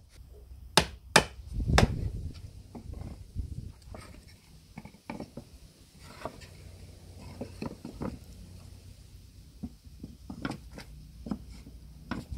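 Wooden shelf boards knocking and clattering as they are set onto the rails of an oak carpenter's workbench frame. Three sharp wooden knocks come in the first two seconds, then lighter knocks and scraping as the boards are shifted into place.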